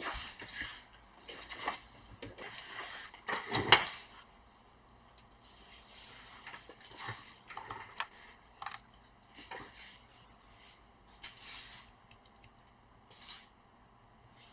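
Small hard plastic and metal parts clattering and clicking as a laptop charger is fetched and connected, a burst of knocks in the first four seconds, loudest just before the end of it, then a few scattered clicks and short rustles.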